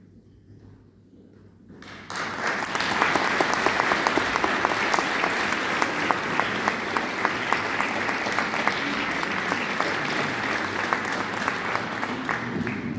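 Concert hall audience applauding. The applause starts suddenly about two seconds in and dies away near the end, greeting the performers as they walk onto the stage.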